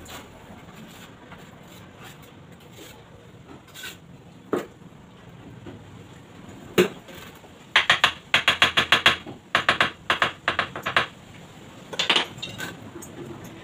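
A fast run of sharp taps on ceramic tile, a tile piece being knocked into place on the window frame's edge, with a few single clicks before and after.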